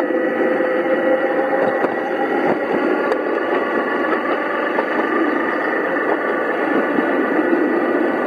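5-inch gauge miniature locomotive running steadily along the track, a constant rumble of wheels and drive with a faint steady whine.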